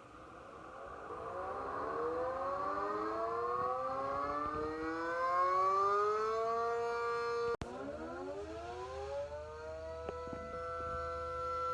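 Tornado warning siren winding up, its tone rising slowly in pitch for about seven seconds. After a sudden break, a siren rises again quickly and settles into a steady tone.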